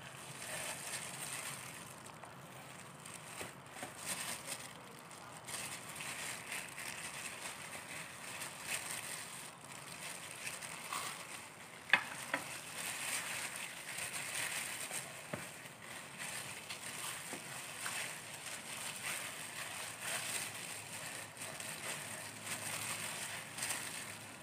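Plastic-gloved hands rubbing and massaging marinade into a raw whole chicken: a steady, uneven crinkling and wet squishing. A single sharp clink of a small ceramic dish about halfway through.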